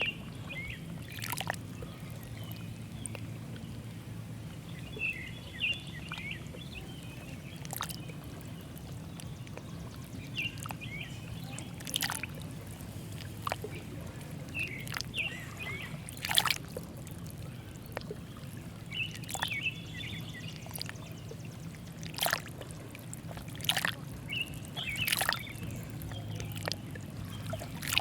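Lake water lapping and splashing at the edge in irregular small slaps, every second to few seconds, over a steady low rumble. Short bird chirps come now and then.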